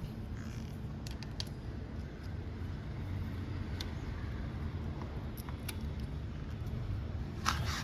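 Scattered light metallic clicks and taps as the lock pin of the Himalayan 411's rear brake caliper is worked out, over a steady low hum. A brief, louder scrape near the end.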